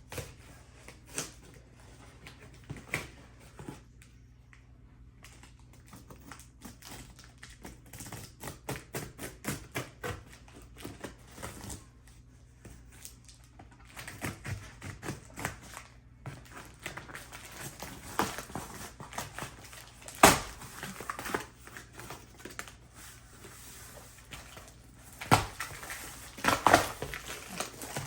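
Cardboard shipping box being opened by hand, its packing tape and flaps worked at. Irregular scratching and clicking throughout, with a few sharp knocks, the loudest about two-thirds of the way through and more near the end.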